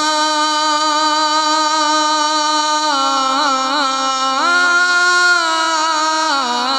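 A man's voice singing a naat unaccompanied, drawing one syllable out in a long melisma: held notes with small ornamental turns, rising to a higher held note about four seconds in and sliding back down near the end.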